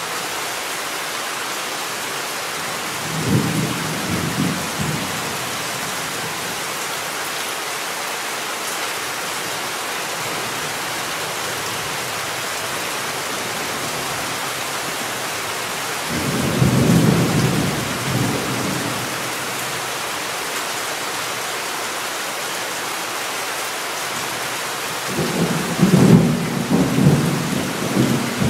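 Steady heavy rain with thunder rolling three times: a short rumble about three seconds in, a longer one past the middle, and a third near the end.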